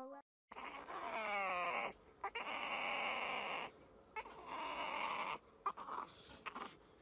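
A puppy whining, one call sliding down in pitch about a second in, followed by two longer rough, noisy stretches.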